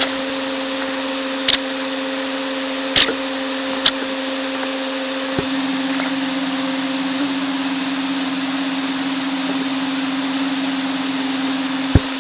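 A steady machine-like hum with three sharp clicks in its first four seconds; the hum shifts slightly about five seconds in.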